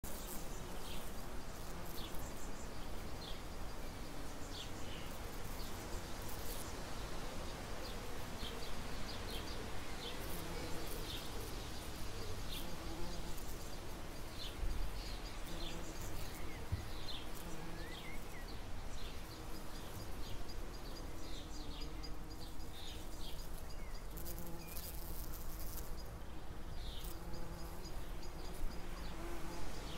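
Bumblebees buzzing in flight, a low hum that comes and goes as they pass. Short bird chirps sound on and off throughout.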